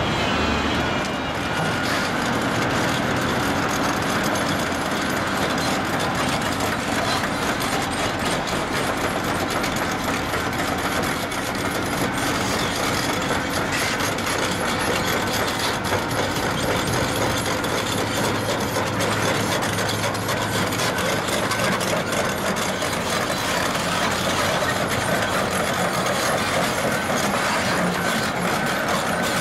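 Volvo tracked excavator travelling, its diesel engine running steadily under a continuous clatter of steel track links.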